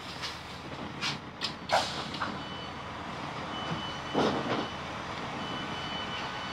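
Class 165 train's door warning beeper sounding as the doors are released at a station stop: a high steady beep in three spells from about two seconds in. A few sharp knocks come before it, and a short rush of noise comes about four seconds in.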